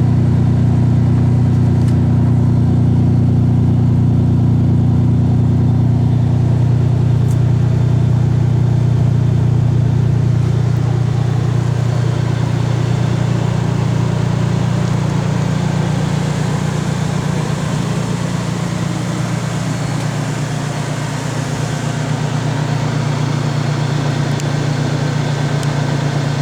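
Toyota 3.4L V6 (5VZ-FE) engine running steadily, heard through its exhaust with a 14-inch Xlerator Magnaflow-clone muffler; the note eases slightly about eleven seconds in.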